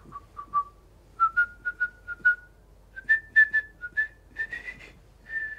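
A man whistling a short tune in quick clear notes that climb gradually in pitch, ending on a longer held note near the end.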